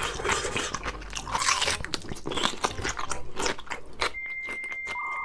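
Close-miked chewing and crunching of a mouthful of food, with wet mouth sounds. About four seconds in, a steady high electronic tone comes in over quieter chewing.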